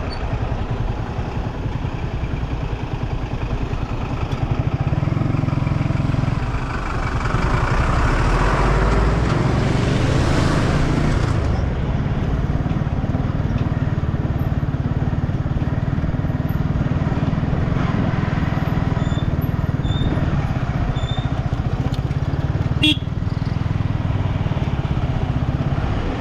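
Yamaha R15's single-cylinder engine running steadily as the bike rides a rough dirt road. The noise swells for several seconds in the middle, and there is one sharp knock a little before the end.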